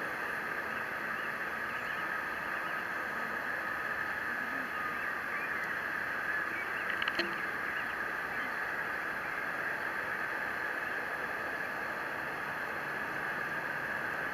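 Steady rush and whine of a taxiing Boeing 787's jet engines at idle, heard across the airfield, with a few faint ticks about seven seconds in.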